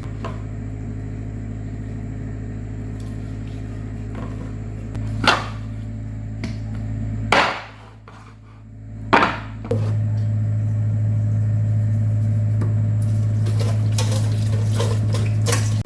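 Kitchen sounds over a steady low electrical hum: three sharp knocks or clatters of utensils spread through the middle, and the hum grows louder about two-thirds of the way through.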